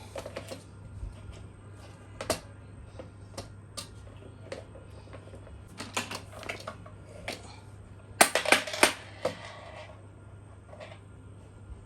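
Irregular clicks and knocks of hard objects being handled, with a quick clatter of several loud knocks about eight seconds in.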